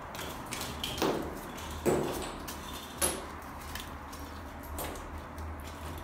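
Three short knocks or thuds, roughly a second apart, the second one loudest, over a faint low hum.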